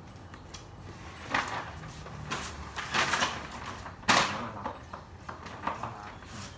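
Rustling, crackling bursts from a large white plastic sheet being handled, with a sharp snap about four seconds in.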